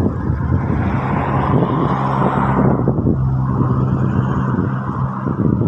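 An engine running with a steady low hum, and a rushing noise that swells about a second in and dies away just before the halfway point, like a vehicle going past.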